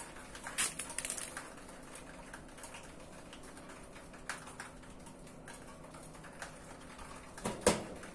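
A tower crane's hoist lowers a steel lattice mast section. A faint steady hum runs throughout, with scattered light knocks, the loudest near the end.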